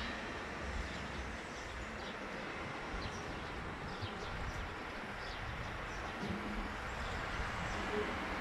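Strong wind buffeting the microphone over a steady wash of street traffic noise, with a few faint bird chirps.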